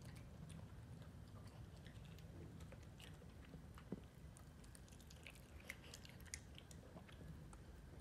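A small dog chewing soft, deboned pork rib meat boiled for soup: faint, scattered chewing clicks, with one light knock about four seconds in.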